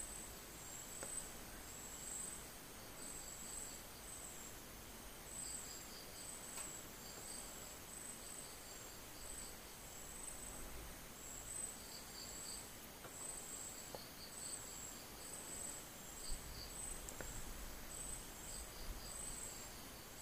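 Faint insect chirping: a high chirp repeating about twice a second, with a lower trill now and then. A few faint light clicks come from the small plastic flashlight switch parts being handled.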